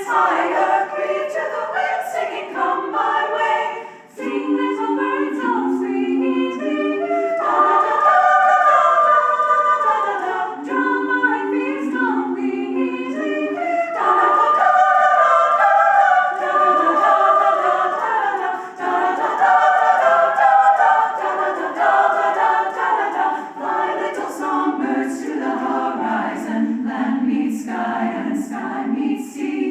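Choir singing a cappella, several voice parts in harmony, with short breaks about four seconds in and again about halfway through.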